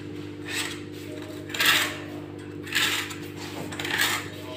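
Dishes being handled in a dishwasher: four short scraping rattles about a second apart, over a steady low hum.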